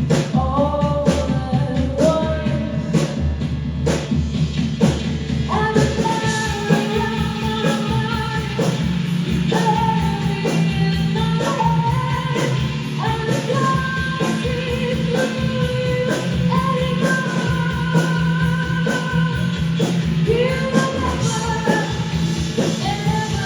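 Rock band playing live: a steady drum beat under a sung melody made of long held notes.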